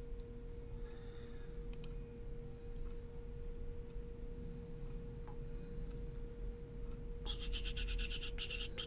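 Steady electrical hum holding a single tone over a low rumble. About seven seconds in, a rapid high rattling noise starts.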